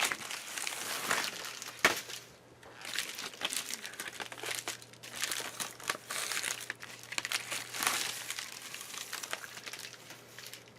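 Packaging around a replacement laptop LCD panel being unwrapped and handled: irregular crinkling and rustling, with a sharp click about two seconds in.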